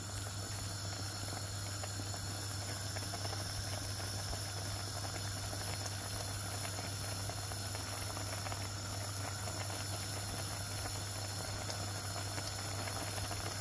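Okra curry in thick coconut milk boiling in a clay pot: a steady bubbling hiss with fine popping, over a steady low hum. The curry is at a full boil after the first coconut milk went in.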